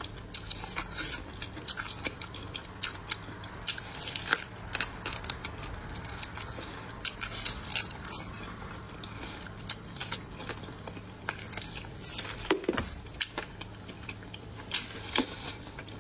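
Close-miked eating: biting and chewing a braised pork trotter, with frequent short, sharp mouth clicks.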